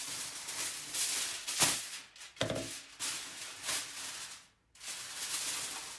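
Aluminium foil crinkling and rustling in bursts as a sheet is pulled from the roll and worked with the hands, with one sharp crackle about a second and a half in.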